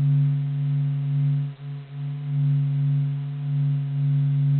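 Steady, low humming drone with a faint hiss, slowly swelling and ebbing in loudness, with a brief dip about a second and a half in. It is a sonification presented as the sound of the Sun: spacecraft data on the Sun's vibrations converted into audible sound.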